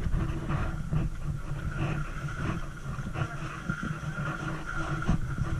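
Footsteps and shuffling of a group walking along a ride track, over a steady low hum with a faint high whine.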